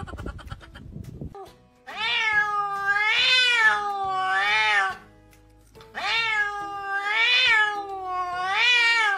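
A grey-and-white domestic cat meowing: six long, drawn-out meows in two runs of three, each meow bending up and down in pitch.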